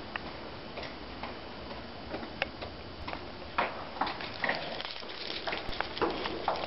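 Paper crinkling and crackling in irregular clicks, sparse at first and growing denser from about three and a half seconds in.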